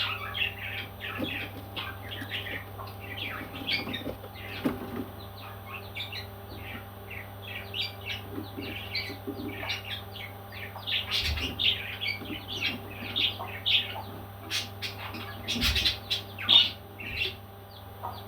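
Baby parrots chirping and squawking in a constant stream of short, rapid calls, with louder flurries in the middle and near the end, over a steady low hum.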